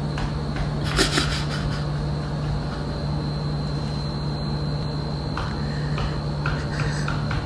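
Steady low mechanical hum with a thin, high, steady whine, and a few light clicks and taps, the loudest a brief noise about a second in.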